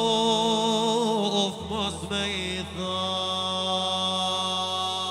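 Ilahi devotional singing: a solo male voice holds long, wavering notes, breaks into a quick ornamented run about two seconds in, then settles on another long note, over a sustained low drone accompaniment.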